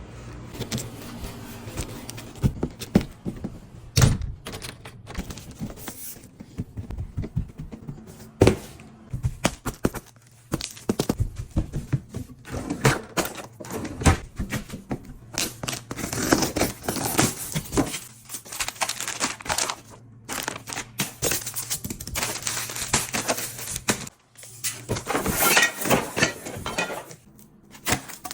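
Packaging and items being handled and unboxed: many sharp clicks and knocks, with stretches of plastic or paper crinkling and tearing about two-thirds of the way in and again near the end.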